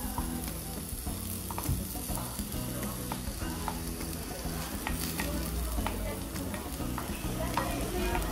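Okonomiyaki batter of shredded cabbage poured from a metal cup onto a hot teppan griddle, sizzling steadily. Short clicks and scrapes come from a wooden stick working the mix out of the cup.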